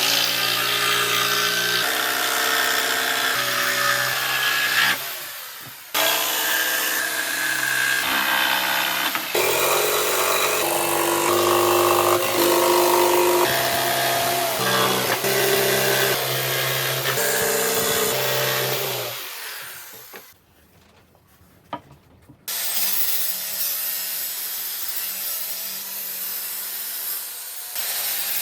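Power tools cutting and sawing in workshop work, in short clips that start and stop abruptly, with a brief near-silent gap about two-thirds of the way in.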